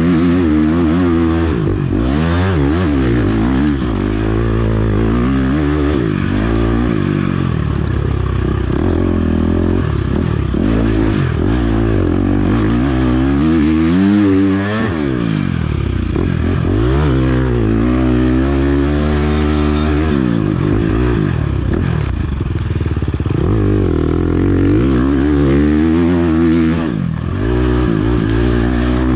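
Enduro dirt bike engine revving hard, its pitch rising and falling every second or two as the throttle is worked through the gears, heard up close from on the bike. Occasional knocks and clatter from the bike over rough ground.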